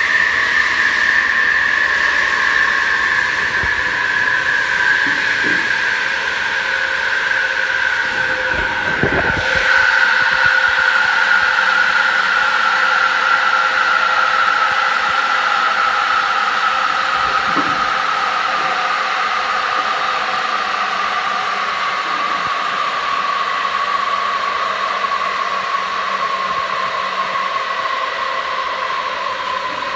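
16-inch DeWalt radial arm saw coasting down with its blade spinning free: a loud whine that falls slowly and steadily in pitch as the motor and blade lose speed. A couple of brief low knocks are heard about a third and about halfway through.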